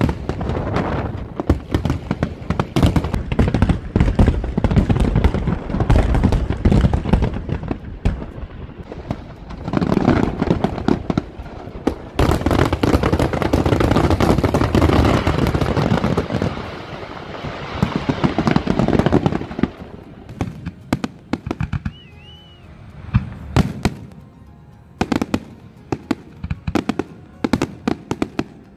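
A fireworks display: a dense barrage of bursting aerial shells and crackle, thinning after about twenty seconds into separate bangs with quieter gaps between them.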